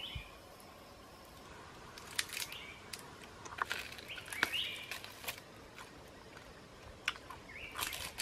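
Crunching and tearing as roasted snake is bitten off a stick, in a string of sharp crackles and clicks from about two seconds in. A few short bird chirps sound over a faint steady insect drone.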